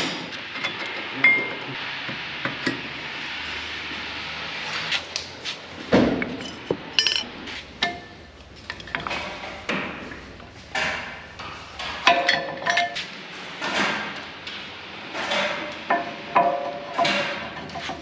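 Metal clinks and knocks of brake pads and hand tools being worked at a Toyota GR Yaris's front brake caliper during a pad change, with a steady hiss over the first few seconds.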